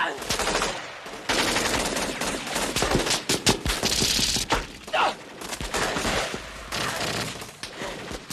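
Automatic rifle fire in rapid, overlapping bursts, starting about a second in after a short lull.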